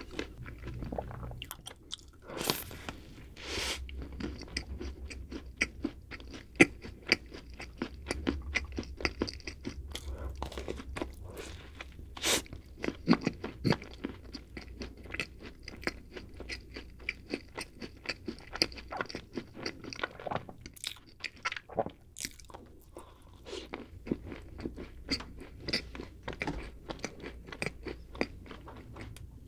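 Close-miked chewing of a chocolate-coated snack cake, with crackling clicks from the chocolate shell and a few louder crunches.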